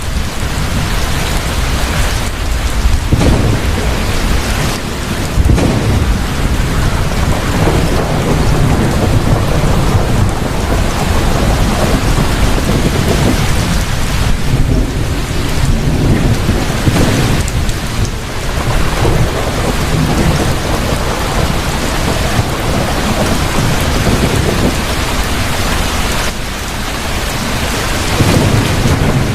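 Heavy rain falling steadily through a thunderstorm, with deep rolling thunder rising and fading in the low range.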